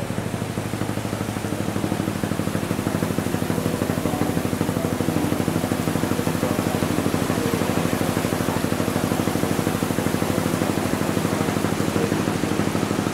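A small engine running steadily with a fast, even pulse, over a steady hiss.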